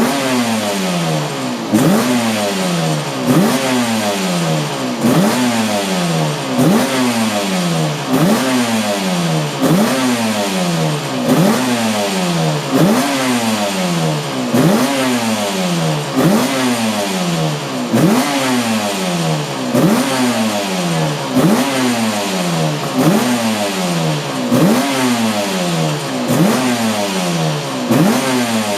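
Cagiva V589 two-stroke V4 Grand Prix racing motorcycle engine, kept running with steady, regular throttle blips: the revs snap up and fall back about every second and a half.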